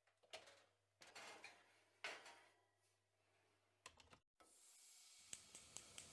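Soft rubbing and scraping handling sounds from an oven's door, three in a row about a second apart. Then a gas range's burner knob clicks as it is turned. After that comes a steady hiss of the gas burner with three sharp ticks near the end.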